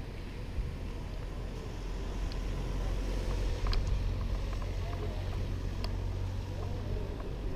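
Scott Aspect 940 mountain bike rolling over a paving-stone path: a steady low rumble of tyres on the pavers and wind on the helmet-mounted microphone, with a few light clicks.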